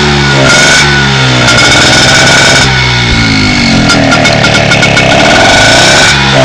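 Peugeot engine being revved hard and let fall back, its pitch sweeping down and up twice, very loud; the exhaust note is the one the uploader likens to a Lamborghini Gallardo.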